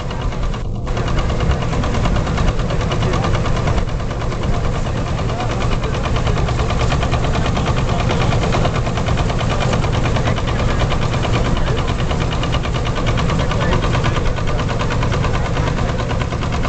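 Old wooden threshing machine running under load as sheaves are fed into it, driven by a flat belt from a vintage tractor's engine: a steady mechanical din over a low hum with a fast, even engine beat.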